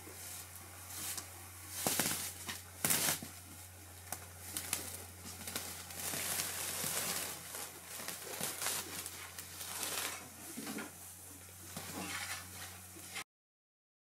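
Loose hay rustling and a pitchfork scraping over a stable floor as hay is moved by hand and fork, with a few sharper knocks in the first few seconds, over a low steady hum.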